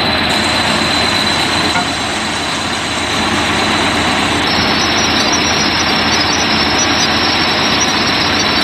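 Excavator's diesel engine running steadily, heard as a loud, even noisy rumble.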